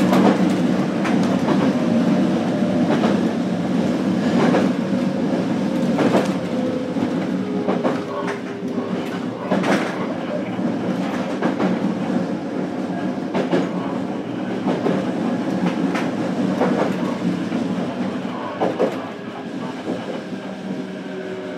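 Running sound of a JR Kyushu BEC819 series DENCHA battery-electric train, recorded aboard motor car KuMoHa BEC819-309: a steady rumble, with the wheels clacking over rail joints about every one and a half to two seconds. A faint motor whine falls in pitch.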